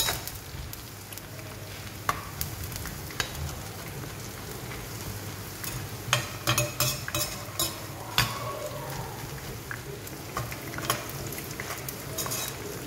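Boondi drops sizzling as they deep-fry in hot oil in a wok, with a perforated steel ladle stirring them and clinking and scraping against the pan in irregular, short knocks.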